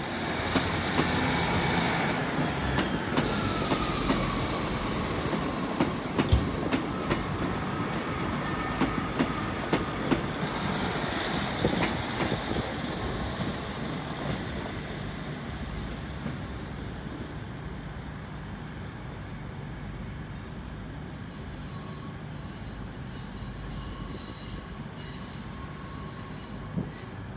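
A GWR diesel multiple unit pulls away and recedes, its wheels clicking over the points and a short hiss sounding about three seconds in. A rising, then steady, high-pitched flange squeal follows as the train takes the curve, and several squealing tones sound near the end as it fades into the distance.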